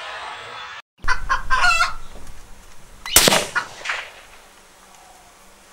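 A single shot from an Anschütz 1782 bolt-action rifle in .308 Winchester: one sharp, loud crack about three seconds in, followed under a second later by a second, softer crack. About a second of clucking comes before the shot.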